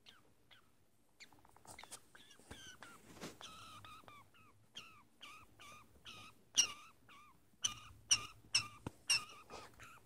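Budgie giving a run of short, bending chirps, one or two a second. The chirps start sparse, then come faster and louder after about a second, the loudest in the second half: anxious calling.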